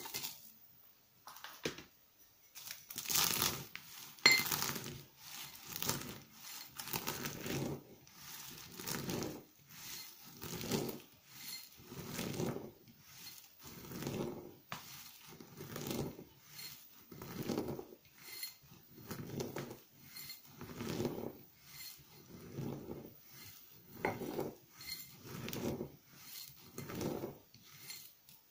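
Dry, brittle flakes of grated laundry soap crunching and crackling as a metal pestle crushes them in a metal mortar, in steady strokes about once a second. A few sharper clinks of pestle on mortar come a few seconds in.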